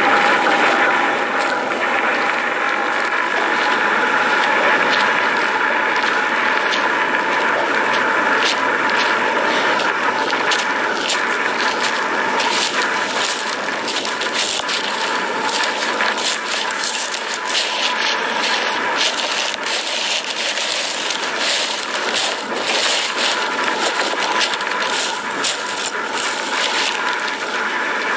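Steady jet-like roar with a steady tone running through it, overlaid after a few seconds by many sharp crackles and pops, as from an erupting lava fissure degassing and spattering.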